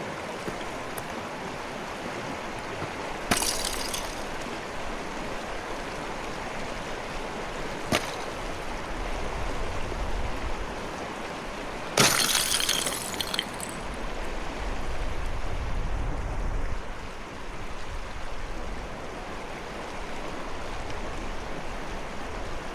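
Steady flow of river water with ice breaking: a sharp crack with clattering shards about three seconds in, a single click near eight seconds, and a louder, longer shattering of ice about twelve seconds in.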